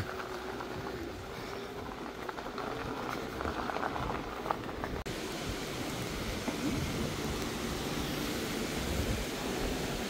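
Bicycle riding over a rough dirt track, with irregular crackling and rattling from the tyres on loose ground. After an abrupt cut about halfway, a steadier rushing noise of tyres rolling on a paved lane.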